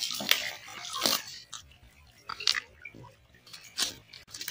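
A hooked fish splashing and thrashing in shallow water, in irregular sudden splashes that are loudest in the first second or so and then grow sparser as it is lifted out.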